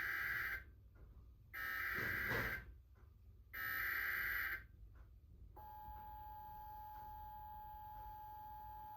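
Emergency Alert System SAME header: three bursts of digital data tones, each about a second long and a second apart. About five and a half seconds in, a steady, quieter EAS attention tone begins and holds, announcing the spoken warning that follows.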